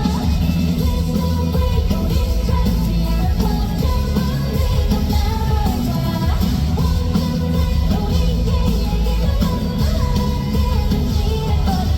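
Live pop-rock band playing a song with female lead vocals over drums, bass and guitars, loud and bass-heavy.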